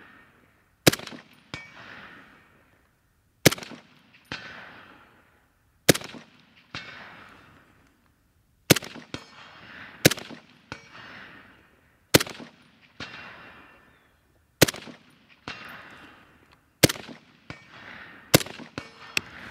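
Suppressed IWI Tavor 7 rifle in .308 fired in slow aimed shots to check its zero: nine reports about two to two and a half seconds apart, each ringing out and followed about half a second later by a fainter, shorter crack.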